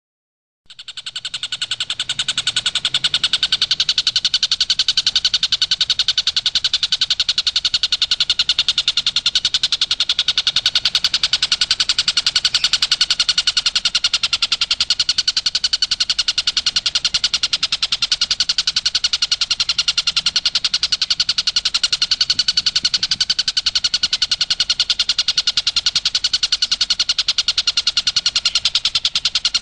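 A kingfisher known to Indonesian bird keepers as tengkek buto, calling in a rapid, unbroken chatter of many high notes a second. It starts just under a second in.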